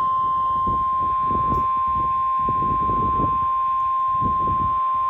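NOAA Weather Radio warning alarm tone: a single steady, high 1050 Hz tone held without a break, the signal that a warning broadcast follows. An uneven low rumble of background noise runs underneath it.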